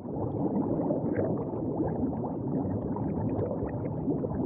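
Bubbling, gurgling water sound effect: a dense steady stream of small pops and gurgles.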